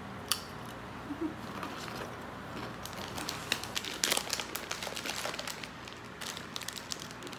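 A crinkly potato chip bag being handled and folded shut. It makes a run of sharp crackles that are busiest around four seconds in.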